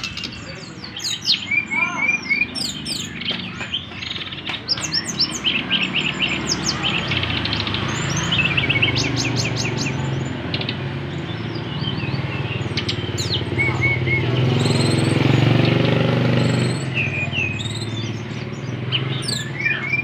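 A caged SRDC (brown-chested jungle flycatcher) singing a busy song of quick chirps and rapid trills, repeated phrase after phrase. A low rumble builds underneath through the middle and fades near the end.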